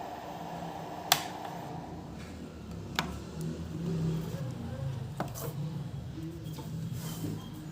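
A brass 3D-printer nozzle scraped and tapped against a glass print bed: a few sharp clicks, the loudest about a second in and others near three and five seconds, over a steady low hum.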